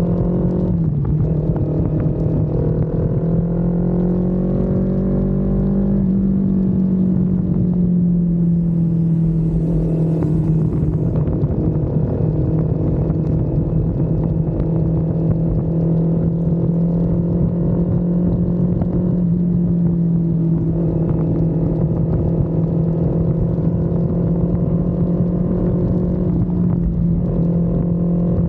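Kawasaki Z400's 399 cc parallel-twin engine and exhaust on a ride, running loudly at steady cruising revs. The pitch climbs gently over the first few seconds, drops back about six seconds in, then holds level with a few brief dips in throttle.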